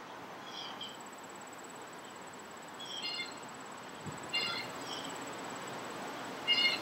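Short high chirps, about five, spaced a second or two apart, over a faint steady outdoor background hiss.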